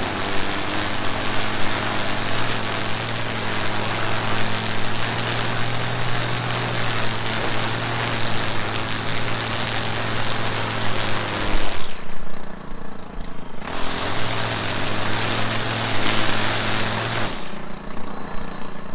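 Stihl FS 190 R string trimmer's two-stroke engine running at full throttle while trimming weeds, a steady high-revving buzz. Twice the throttle is let off and the engine drops to a lower idle: about twelve seconds in for two seconds, then again near the end.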